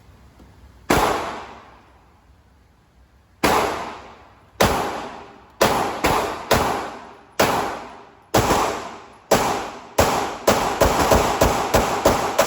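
Semi-automatic gunfire, about twenty single shots, each trailing off in echo. The shots are spaced a second or more apart at first, then come faster in a quick string near the end.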